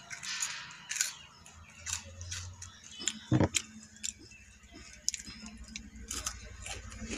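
Someone biting and chewing a wrapped chocolate bar: scattered crisp clicks and crackles of the bar and its wrapper, with one louder dull knock about three and a half seconds in.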